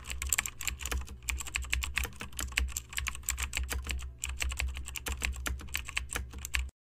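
Computer keyboard typing sound effect: rapid, uneven keystroke clicks with a couple of brief pauses, stopping shortly before the end.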